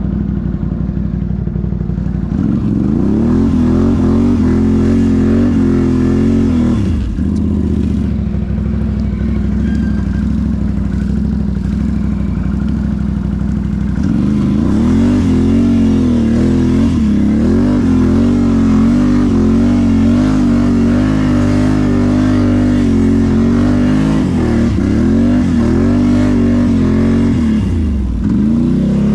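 Can-Am ATV's V-twin engine revving up and down under load in deep snow, the pitch rising and easing off again and again, with brief drops in throttle.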